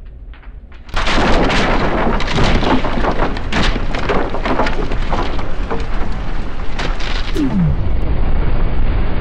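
A large explosion: a sudden loud blast about a second in, then a sustained roar full of sharp crackles and snaps. A short falling whistle comes near the end.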